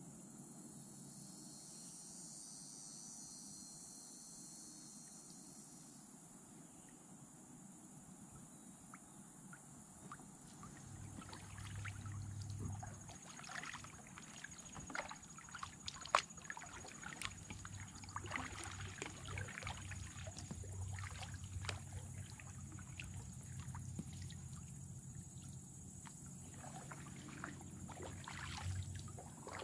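Kayak paddles dipping and stroking through calm water, with splashes, drips off the blades and light knocks, from about ten seconds in. For the first several seconds a high insect buzz is the main sound.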